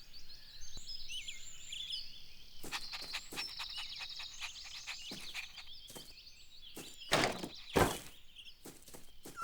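Cartoon outdoor ambience of small birds chirping, with a series of light knocks and two louder thuds a little after seven seconds in.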